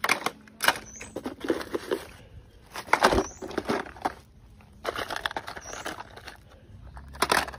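Plastic toy vehicles clattering and knocking together as they are picked up and moved around on a plastic tarp: a run of irregular knocks and rattles, loudest about three seconds in and again near the end.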